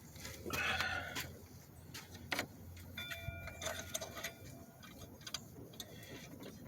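Irregular light metallic clicks and clinks of bolts and hand tools while the water pump's bolts are being started, with a short metallic ring about three seconds in.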